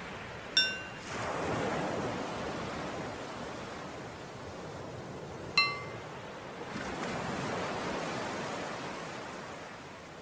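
Ocean waves washing in steadily, with a small bell struck twice about five seconds apart as the cue to inhale and then exhale. Each strike rings briefly, and the second is lower in pitch.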